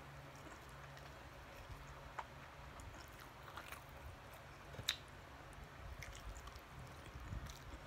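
Close mouth sounds of chewing, with soft wet squishing as siomai dumplings are pulled apart by hand, made of scattered small clicks. A single sharp click about five seconds in is the loudest sound.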